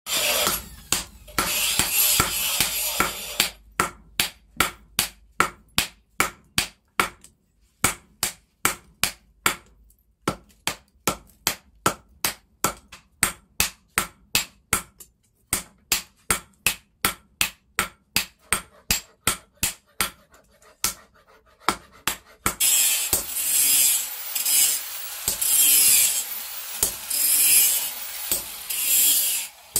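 Hammer blows on red-hot steel held in tongs on a steel post anvil, a striker forging an axe head, about two to three sharp blows a second with brief pauses. The first few seconds and the last seven or so are a denser, faster metal clatter.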